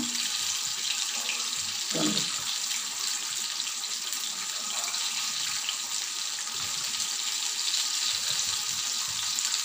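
Steady sizzling hiss of breaded chicken pieces deep-frying in hot oil.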